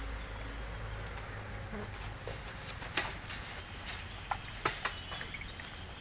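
Wire-mesh cage trap rattling: a few short sharp clicks and knocks, one about three seconds in and a quick cluster a second or two later, over a low steady hum.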